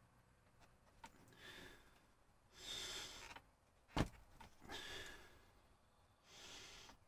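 A person breathing heavily through the nose, about four slow breaths, while straining to press a rubber timing belt into a slot in an acrylic 3D-printer frame. A single sharp click about four seconds in, from the belt being worked against the acrylic.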